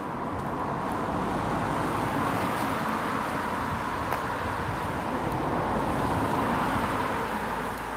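A car driving past on a narrow road, the noise of its tyres and engine building steadily and then falling away near the end.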